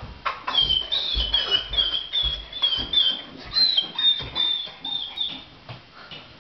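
A dog giving a rapid run of high-pitched yips and whines, about a dozen in a few seconds, with dull thumps in between; they die away near the end.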